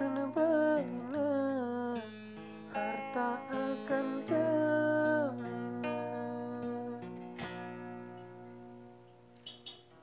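Acoustic guitar strumming chords under a gliding sung melody, the song fading out over the last few seconds.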